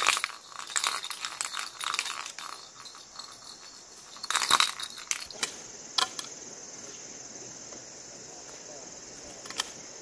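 Several seconds of sharp clicks and clatters, with a louder cluster about four and a half seconds in. Insects chirr steadily and high from about halfway.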